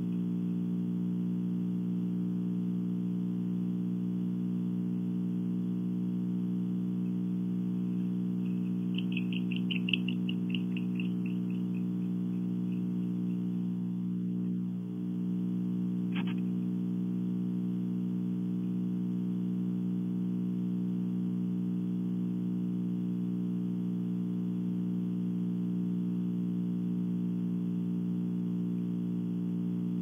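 Steady electrical hum on a wildlife camera's audio feed. About ten seconds in, a short rapid run of high clicks fades out, and a single sharp click follows a few seconds later.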